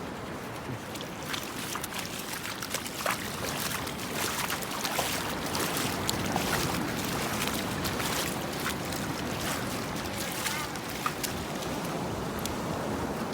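Ocean surf and wind, a steady wash of noise, with many small rapid clicks and ticks over it.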